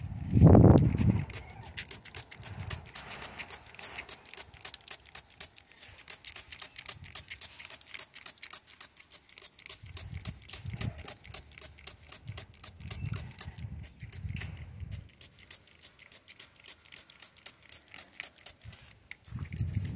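Rapid, irregular ticking and pattering of misting water drops on the aviary's mesh and surfaces. A loud low thump comes about half a second in.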